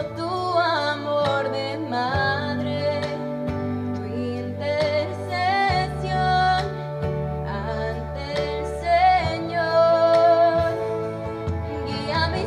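A young woman singing into a handheld microphone over an instrumental backing, her held notes wavering with vibrato above steady low bass notes.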